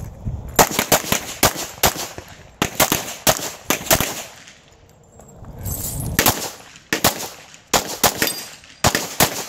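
Handgun fired rapidly during a USPSA Limited division course of fire: sharp shots in quick strings of several, with short pauses between strings.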